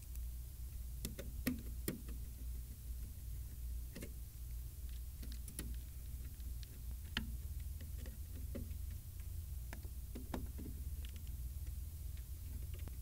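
Scattered light clicks and taps from hands working on metal parts and cables inside an ATM cabinet, over a steady low hum. The taps come irregularly, the sharpest about a second and a half and two seconds in.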